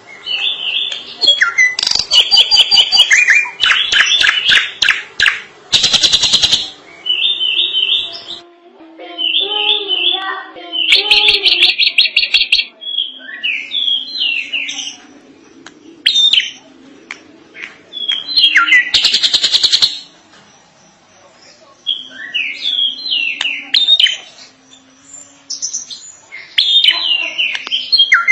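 Drongo singing a long, varied song: phrases of quick whistled and chattering notes, broken by several harsh rasping rattles, with short pauses between phrases.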